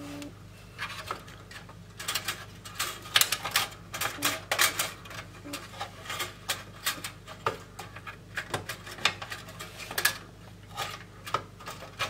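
Thin sheet-steel expansion-slot brackets clinking and scraping against the steel frame of a desktop computer case as they are worked into place by hand: a long run of irregular sharp metallic clicks and rattles.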